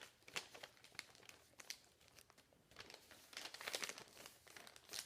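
Folded paper airplane being handled: faint, irregular paper crinkling and crackling, with a denser run of crinkles about three and a half seconds in.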